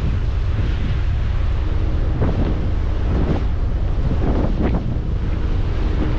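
Strong wind buffeting the microphone on the open deck of a moving ferry, over the rush of water breaking along the hull. A faint steady hum sits underneath.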